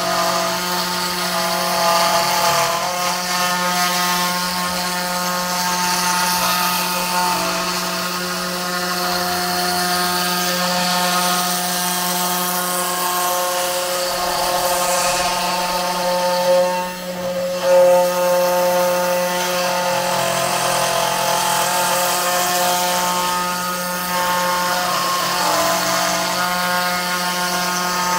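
Genmitsu 4040 Pro CNC router's spindle running and its bit cutting 3 mm plywood, a steady whine with pitched motor tones that shift every few seconds as the cut changes direction. The level dips briefly and jumps back about 17 seconds in.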